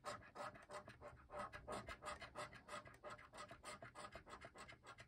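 A coin scratching the coating off a scratch-off lottery ticket in quick back-and-forth strokes, several a second, faint.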